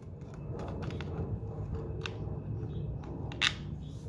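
Phillips screwdriver turning out the screw that holds the air box to the carburettor: a few light metal clicks and scrapes, the loudest about three and a half seconds in, over a steady low hum.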